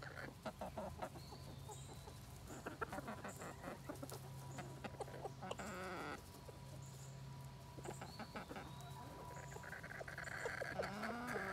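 Chickens clucking, with scattered clicks and rustling from a hen being handled as a harness is fitted on her.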